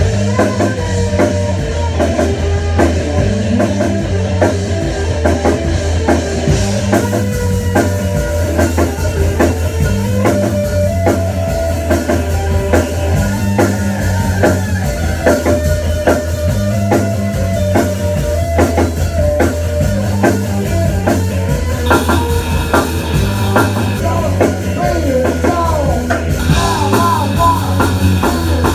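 A rock band playing live: drum kit and electric guitars over a low riff that repeats about every two seconds. Notes bending up and down come in near the end.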